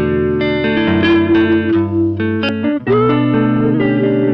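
Electric guitar playing sustained, ringing chords through delay and vibrato pedals (an Anasounds Utopia delay and a Fairfield Circuitry Shallow Water vibrato). The chords change a few times, with a short break and a new chord near three seconds in.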